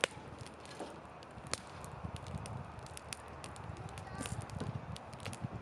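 Wood fire crackling in a campfire stand: irregular sharp pops and snaps over a low, steady rustle of burning.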